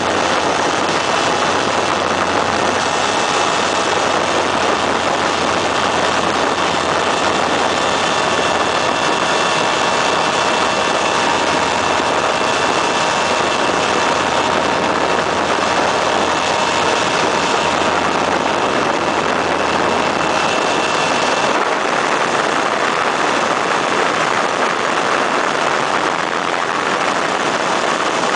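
Weedhopper ultralight's two-stroke engine and propeller running steadily in flight, under heavy wind rush in the open cockpit. About 21 seconds in, the low drone thins and one steady tone drops out.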